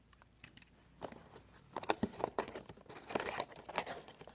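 Packaging being cut open with a razor blade and pulled apart: a busy run of crinkling, crackling and tearing that starts about a second in.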